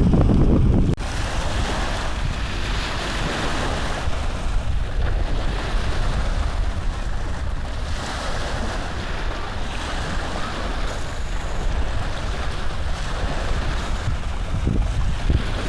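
Steady rushing noise on the microphone, with a heavier low rumble that drops away abruptly about a second in.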